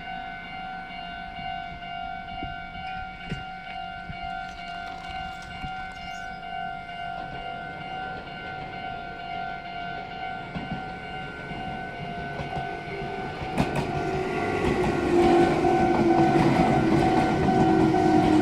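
Japanese level-crossing electronic warning bell ringing in a steady, repeating 'kan-kan'. About three-quarters through, a Meitetsu electric train approaches and grows louder, with rail clicks and a low whine that slowly falls in pitch.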